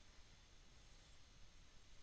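Near silence: room tone with a faint steady hiss and a thin high whine.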